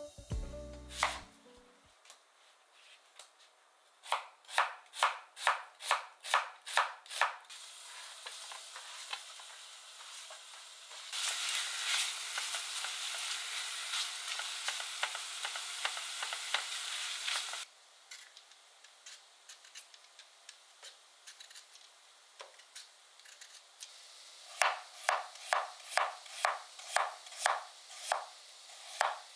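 A kitchen knife chopping on a cutting board, about two to three even cuts a second. Then sliced onions sizzle in a stainless steel pot with a spatula stirring them, which stops suddenly. Near the end a knife slices peeled potato into rounds on the board at the same steady pace.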